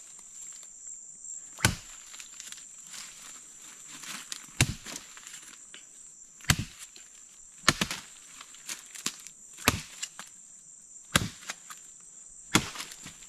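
Machete chopping into a thick forest water vine: seven hard strikes, one every second or two, cutting the vine to drink the water inside. A steady high-pitched drone of insects runs underneath.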